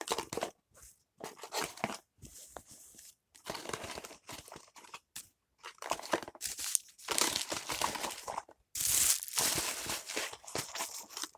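Paper and cardboard toy packaging being handled and folded shut: irregular crinkling and rustling, with the longest, loudest crumpling stretch about nine seconds in.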